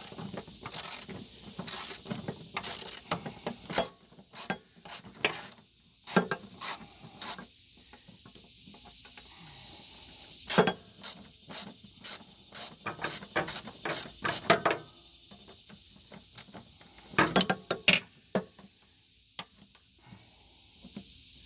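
Socket ratchet wrench clicking in several runs of rapid clicks with pauses between, as the nut on a riding mower's deck pulley is worked off.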